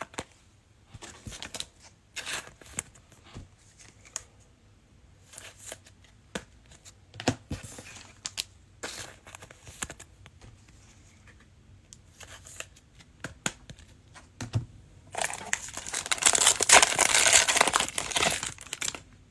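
Trading cards being handled, with light scattered rustles and clicks. About fifteen seconds in, a card pack's wrapper is torn open and crinkled loudly for a few seconds.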